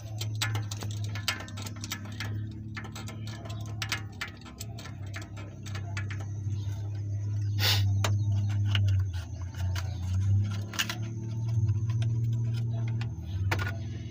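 Suzuki F6A three-cylinder petrol engine running unevenly, a steady low hum that swells and dips, with many sharp clicks over it. One of its spark plugs is not sparking, so a cylinder is misfiring.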